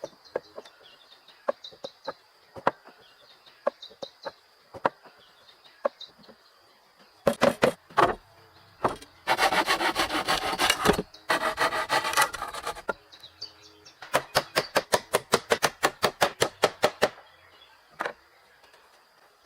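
A hand tool rubbing and scraping on wood. Light taps come about once a second at first, then bursts of quick back-and-forth strokes, densest a little before the middle, with a faint steady high insect buzz underneath.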